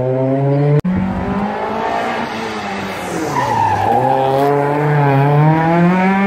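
Rally car engines at full throttle. About a second in one engine breaks off abruptly, and a classic rally saloon comes through: its note drops as it lifts off for the corner with a brief tyre squeal, then climbs steadily as it accelerates hard away.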